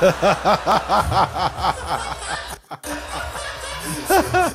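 A man laughing hard in a rapid run of about six 'ha's a second. He catches his breath briefly and breaks into laughter again near the end.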